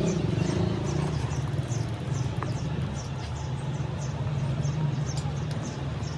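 An engine running steadily at idle, with faint high ticks about two or three times a second.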